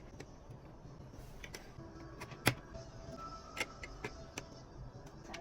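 Scattered light clicks and taps of small plastic building pieces being handled and fitted, with one sharper click about two and a half seconds in.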